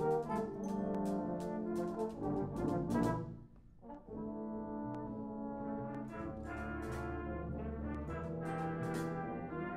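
British-style brass band playing a concert piece: cornets, horns, trombones, euphoniums and tubas in full chords with percussion strikes. The music drops away briefly about three and a half seconds in, then comes back with held chords over a low bass line.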